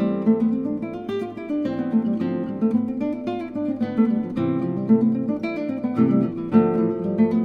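Background music: acoustic guitar playing a run of plucked notes and strums.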